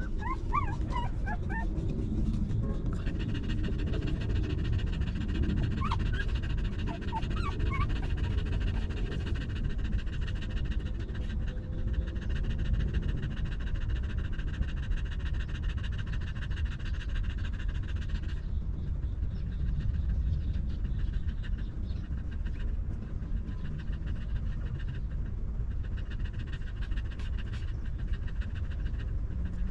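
Mother dog panting steadily through her open mouth. A few short, rising squeaks from her newborn puppies come in the first second and again about six to eight seconds in.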